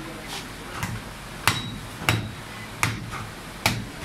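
Butcher's cleaver chopping goat meat on a wooden chopping block: five sharp chops, the first lighter, each well under a second apart.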